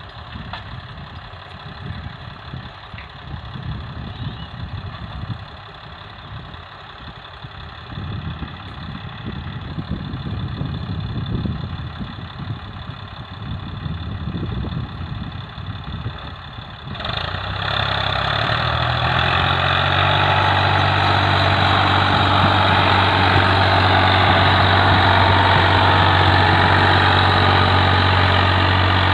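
Ford 4000 tractor engine running steadily while the tractor works the field with a rotary tiller. The sound is fainter at first, then becomes abruptly louder and closer a little past halfway, a steady engine drone.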